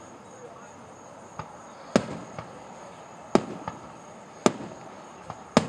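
Fireworks going off in a show: four loud sharp bangs, roughly a second apart, starting about two seconds in, with a few fainter pops between them. Each bang leaves a brief rumbling echo.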